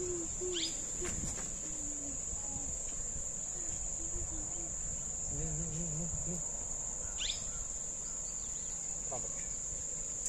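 Insects trilling steadily in one continuous high-pitched tone, with faint distant voices underneath.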